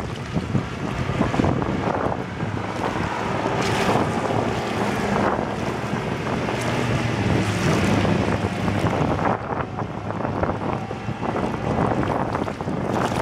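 Outboard motor of a rigid inflatable boat running at speed as the boat passes, swelling louder through the middle and easing off near the end, mixed with hull and spray hiss off the water. Gusty wind buffets the microphone throughout.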